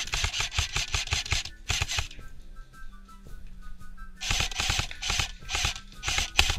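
Airsoft electric rifle firing on full auto in rapid bursts. One long burst of about two seconds is followed, after a pause, by several short bursts near the end, with faint background music underneath.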